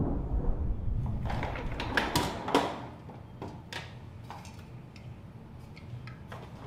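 Refrigerator door opening and aluminium soda cans knocking and clinking as one is taken from the door shelf: a cluster of scrapes and clicks, then a few single light clicks. A low rumble fades out over the first couple of seconds.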